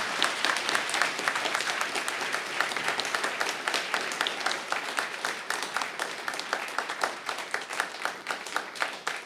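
Audience applauding in a hall, many people clapping steadily, thinning slightly near the end.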